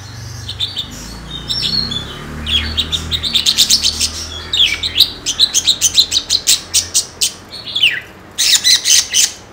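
Birds chirping, with quick runs of sharp chirps at about five a second and a few downward-sliding calls.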